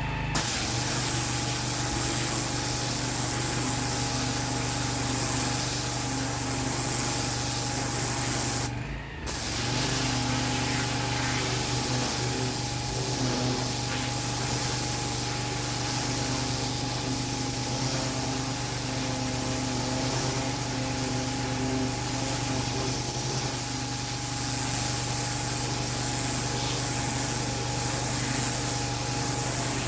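Pressure washer jet spraying hard onto block paving, with the machine's engine running steadily underneath. The spray cuts out for about half a second about nine seconds in, then starts again.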